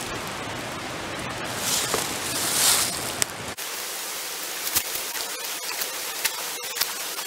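Deer hide pushed into a bucket of egg-and-oil tanning solution and worked by hand, wet squelching and small clicks over a steady hiss, with a louder rush of noise about two seconds in.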